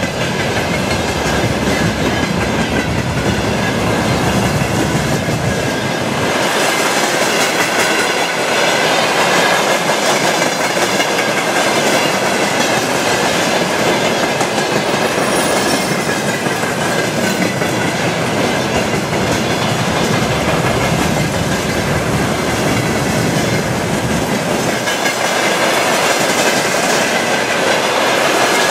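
Long freight train of railway tank cars passing close by: loud, steady rumble of steel wheels on rail, with the wheels clattering over the rail joints and a thin, steady ringing tone above the rumble.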